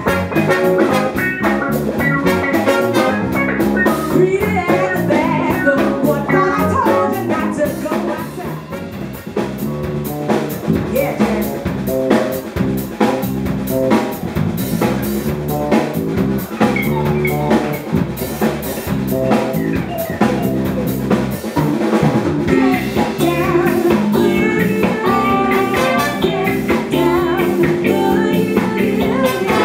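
A live showband playing a pop-soul-funk number: drum kit, electric bass and guitar with singing over them.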